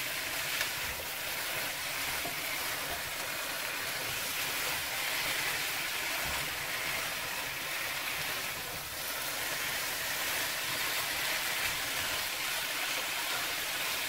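Chicken pieces in curry paste sizzling steadily in a nonstick frying pan while being stirred with a silicone spatula.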